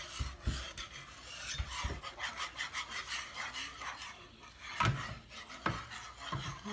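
Wire whisk scraping round the bottom and sides of a saucepan of thick homemade enchilada sauce, in a run of irregular strokes, with two sharper knocks of the whisk against the pan about five and six seconds in.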